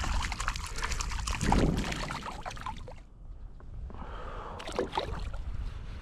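A hooked fish thrashing and splashing at the water's surface, in quick crackling bursts for about three seconds with a heavier splash midway. After a short lull there is more splashing about five seconds in.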